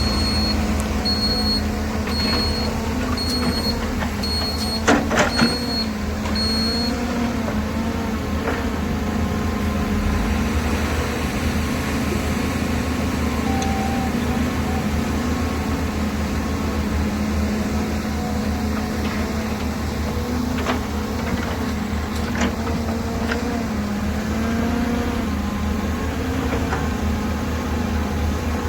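Heavy diesel earthmoving machinery at a mine running steadily, its engine note rising and falling slightly under hydraulic load. A reversing alarm beeps about once a second for the first several seconds, and a quick cluster of loud knocks comes about five seconds in.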